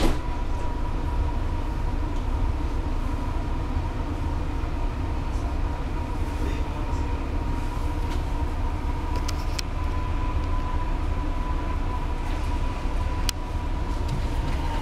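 Dubai Metro train running along its elevated track, heard from inside the carriage: a steady low rumble with a constant thin whine. A few sharp clicks come late on.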